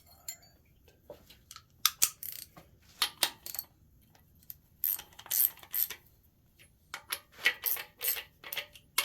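Sharp metallic clinks and clatters of a socket and engine parts being handled, some in quick clusters, as a bearing cap is fitted to a Gen 6 454 big-block.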